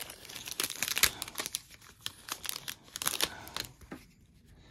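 A trading-card pack's plastic wrapper crinkling and tearing as it is opened by hand, in irregular short crackles.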